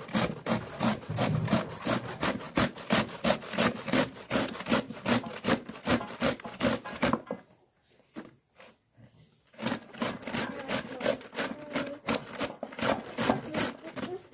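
Beetroot being grated on a stainless-steel box grater: quick rasping strokes about three a second, stopping for about two seconds midway and then resuming.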